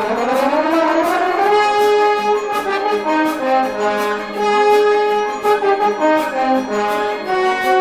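Orchestral music led by brass, opening with a rising swell that settles into held chords, with light regular percussion ticks.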